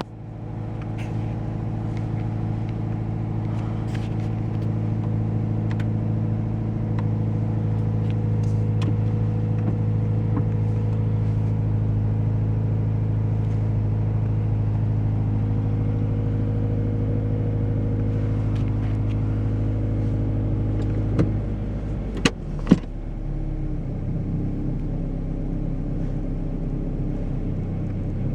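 Scion FR-S's flat-four engine running steadily. About three-quarters of the way through come two or three sharp clicks, after which the engine note changes and settles slightly lower.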